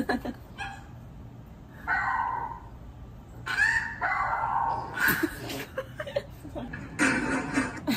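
A dog vocalizing in several separate short calls, a second or two apart.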